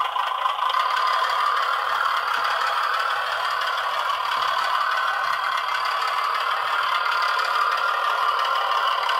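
G scale model diesel-style locomotive running: a steady, engine-like rattle with no deep bass.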